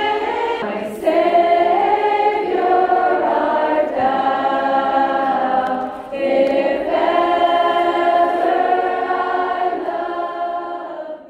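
A group of women singing together as a choir, holding long notes in phrases a few seconds long with brief breaks between them, fading out at the end.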